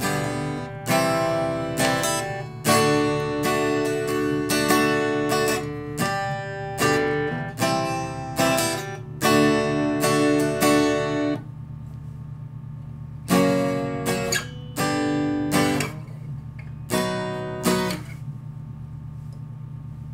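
Fender T-Bucket 400 CE acoustic guitar strummed through a series of chords, stopping for about a second and a half near the middle before a few more strums. A steady low hum runs underneath.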